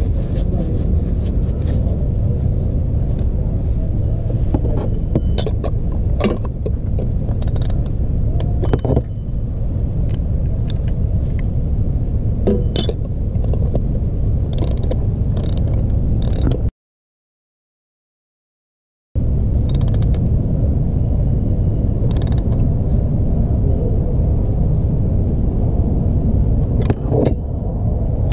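3/8-inch-drive ratchet clicking in short runs as it turns an oil filter socket to torque down a new spin-on oil filter, over a steady low rumble. The sound drops out to silence for a couple of seconds about two-thirds of the way through.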